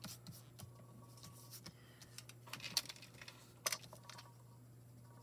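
Light clicks and taps of paper card pieces and crafting tools being handled on a table, with a short paper rustle about two and a half seconds in and a sharper click soon after, over a faint steady low hum.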